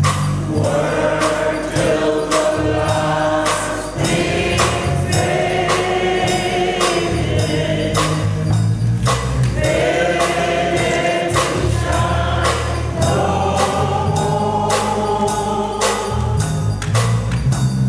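A choir singing a gospel hymn with band accompaniment: held voices over deep bass notes and a steady percussion beat.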